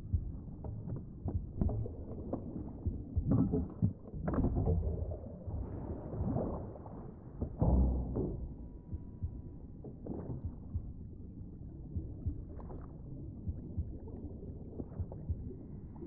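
Muffled underwater ambience: a low rumble with scattered dull knocks and clanks from a metal mechanism being handled underwater.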